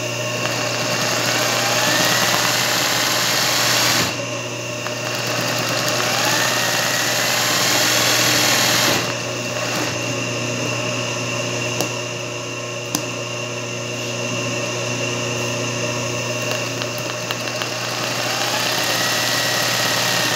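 Singer 20U zigzag sewing machine doing machine embroidery in three spurts, each starting with a rising whine as it gathers speed; between spurts its motor keeps humming steadily, with a few single clicks.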